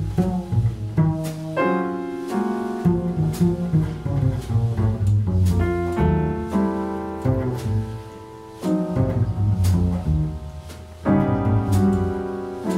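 Jazz piano and double bass playing together: piano chords and runs over a low bass line, with light clicks of hand percussion through it.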